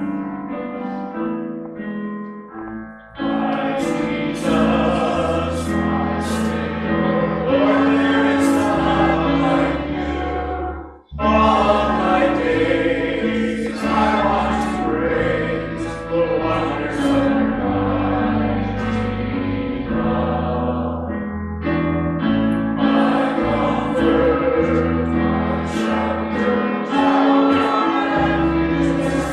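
Worship song: a group of voices singing together over instrumental backing with sustained bass notes, briefly dipping twice between phrases.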